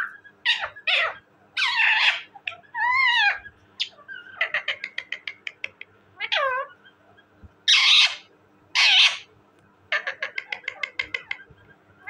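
Indian ringneck parakeet calling: a string of pitched calls that glide up and down, harsh screeches (the loudest, one after another near the middle), and two fast runs of short clicking chatter.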